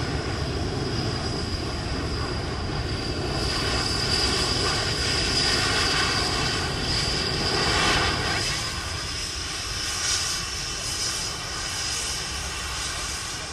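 Panavia Tornado's twin Turbo-Union RB199 turbofans running at low taxi power, a steady jet rumble with a high whine. It grows louder toward the middle and eases off after about eight seconds as the jet rolls past.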